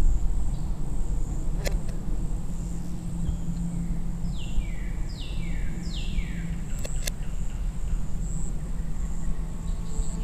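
Outdoor ambience: a steady low rumble under a thin, steady high insect buzz. About halfway through, a bird gives three quick falling calls, and there are a few faint clicks.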